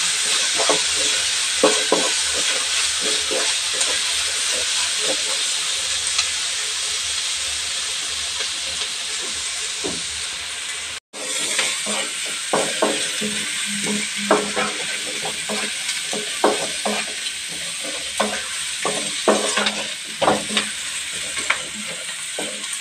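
Sliced onions, green chillies and curry leaves sizzling in hot coconut oil in an aluminium kadai, with the scraping and knocking of stirring against the pan. The sound cuts out for an instant about eleven seconds in, then the sizzling and stirring go on.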